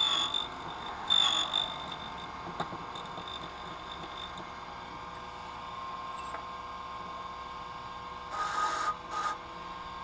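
Key-cutting machine at work: the key blank scrapes against the spinning cutter at the start and again, loudest, about a second in, with the machine's motor running on steadily under it. Near the end come two short scraping noises.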